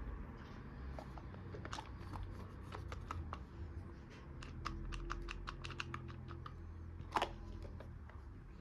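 Small plastic play-kitchen toys being handled: quick, irregular light clicks and taps, with one louder knock about seven seconds in.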